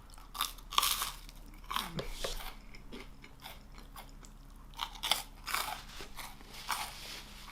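Close-miked crunchy chewing of a dried churro, the crunches coming in irregular spells with short pauses between them.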